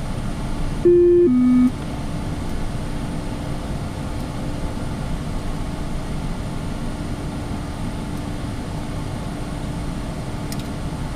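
Steady cockpit noise of a Cessna 680 Citation Sovereign business jet on approach: engine and airflow noise with a low steady drone. About a second in, a loud two-note falling chime sounds once, briefly masking the noise.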